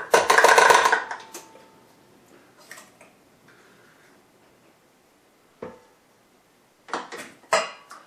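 Spatula and cup scraping and clattering against a stainless steel stand-mixer bowl: a loud scrape in the first second with a brief ring from the bowl, then a few light knocks and clinks.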